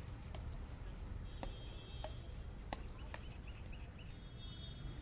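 Badminton rally: rackets striking a shuttlecock, about five sharp hits spaced half a second to a second apart, over a steady low outdoor rumble.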